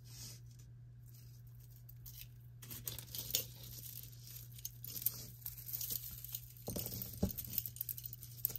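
Soft clicking and rustling of jewelry being handled: metal chains and glass beads lightly clinking and dragging over a cloth as a tangled necklace is pulled from a pile. The handling noise starts a few seconds in.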